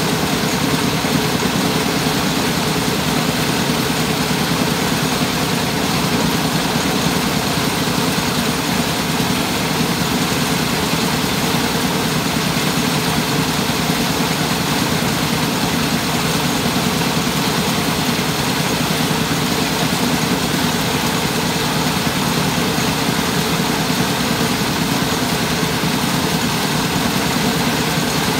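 Mobile rice-milling machine (selep keliling) running steadily, its engine driving the huller as paddy is milled.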